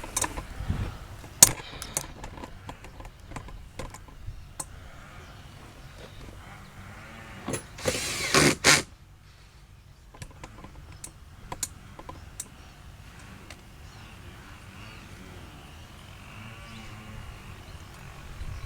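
Scattered clicks and knocks of hand tools and plastic door trim being worked on a car door, with a louder noisy rattling burst of a few strokes a little before halfway through.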